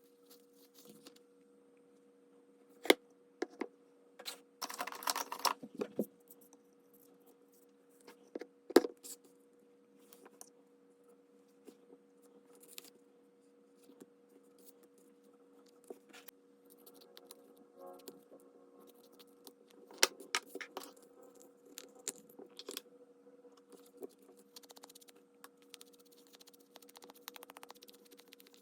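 Paper and craft supplies being handled on a desk: scattered taps and clicks, with a burst of paper rustling about five seconds in, over a low steady hum.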